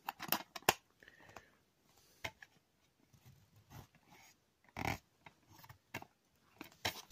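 Faint clicks and rubbing from a DVD disc being handled in its plastic case, with a short louder noise about five seconds in.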